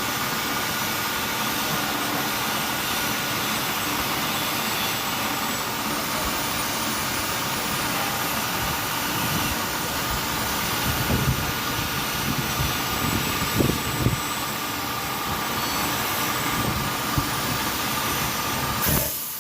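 CNC milling machine cutting a slot in plastic: a steady high-pitched spindle whine over constant cutting noise, with irregular knocks from about 11 to 17 seconds in. The sound shifts and drops away near the end.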